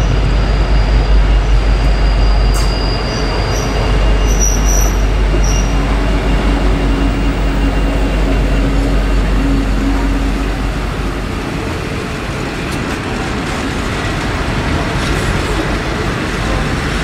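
A passenger train hauled by an N class diesel-electric locomotive running into a station: a heavy engine rumble that eases off after about ten seconds as the carriages roll past, with thin high wheel or brake squeals a few seconds in and scattered wheel clicks later.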